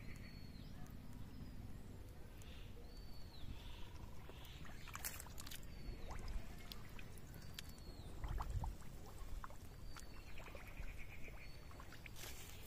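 Outdoor ambience: short, high, arched animal calls repeat about every one and a half to two seconds, with a brief rapid trill about ten seconds in. A few sharp clicks and knocks sound over steady low background noise.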